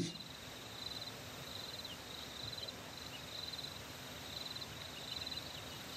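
Faint outdoor ambience: insects trilling high in short repeated bursts over a steady hiss, with a few brief high chirps.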